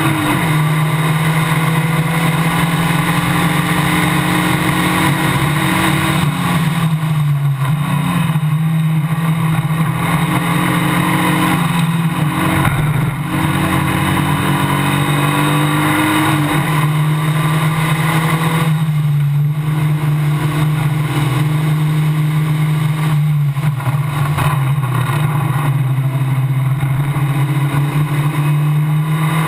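Formula Basic single-seater race car's engine running hard at high revs. Its note dips several times, about every five or six seconds, and climbs back as the car slows for corners and accelerates out of them.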